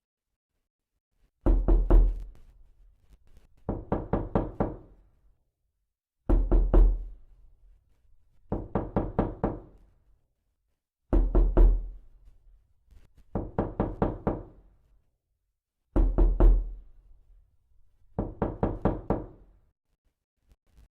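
Repeated knocking in a looped pattern: a loud group of four or five quick knocks, then a softer group of about five knocks roughly two seconds later. The pair repeats four times at an even pace.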